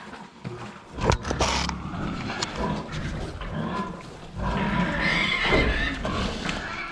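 Farm animals calling around feeding time, with a sharp knock about a second in and a long, loud call in the second half.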